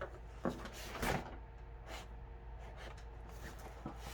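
A cardboard package being handled: a knock about half a second in, then a short scraping rustle about a second in, followed by faint handling sounds.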